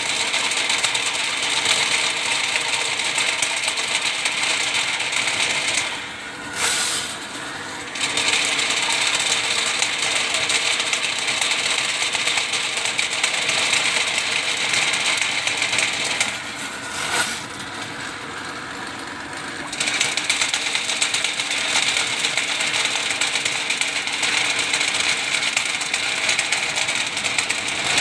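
Ridgid drain-cleaning machine's spiral steel cable spinning inside a pipe, with a dense, steady metallic rattle. The rattle drops away twice, for about two seconds around six seconds in and for about three seconds from about sixteen seconds in, before it resumes.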